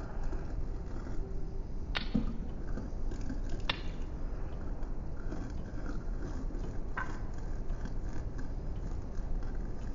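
Steady low noise with three short sharp clicks: about two seconds in, shortly before four seconds, and about seven seconds in.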